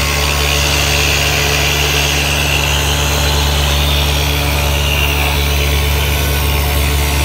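Broom-handle rounding machine running with a steady hum and hiss as its rubber feed rollers carry a wooden handle through.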